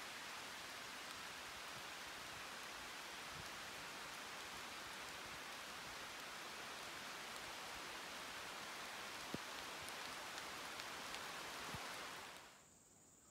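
Steady rain falling, an even hiss with a few scattered drop ticks. Near the end it fades out quickly, leaving a faint, high, steady insect drone.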